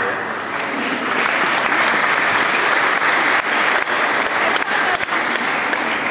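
Crowd applauding: a dense, steady clapping.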